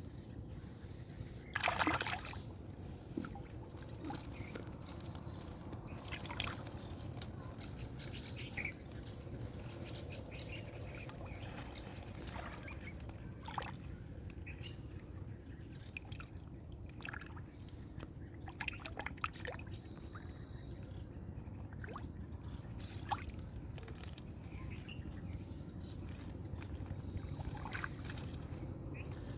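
River water trickling and sloshing over a steady low rumble, with scattered small splashes; the sharpest splash comes about two seconds in.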